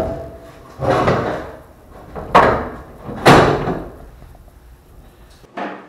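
Five heavy knocks on the sheet metal at the back of a 1968 Mustang, from setting the new tail panel into place. Each knock rings on and dies away over about a second.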